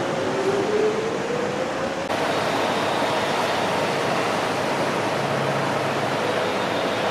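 Docklands Light Railway train on elevated track: an electric motor whine rising in pitch over a steady rushing background noise. About two seconds in the sound changes to a fainter whine that rises slowly.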